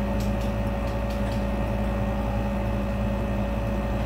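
Steady motor hum with constant tones, with a few faint light ticks in the first second or so.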